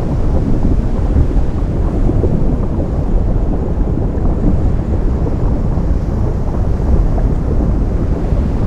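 Ocean surf meeting a lava flow at the shore: a loud, steady, deep rumble with no separate crashes standing out.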